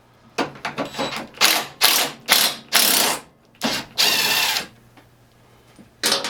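Socket ratchet wrench clicking in a run of strokes, a few quick ones and then longer pulls, for about four seconds, as a self-tapping screw is backed out of the snowblower's housing.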